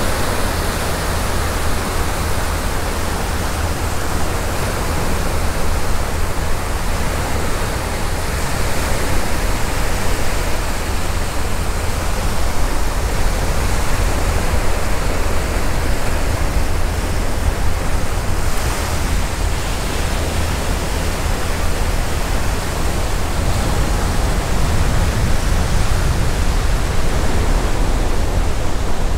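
Steady rush of wind on the microphone, with a deep rumble, mixed with the wash of surf on the beach.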